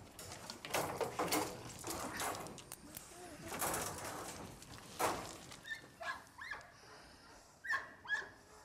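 Scuffing and crunching footsteps on gravel as a young pointer is let out of its kennel run and jumps about. In the second half there is a string of short, high chirping calls.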